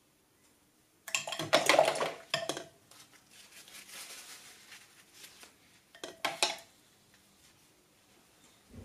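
Paintbrush clinking and rattling against ceramic paint dishes: a busy burst of clinks about a second in and a shorter one around six seconds, with softer scratchy sounds between them.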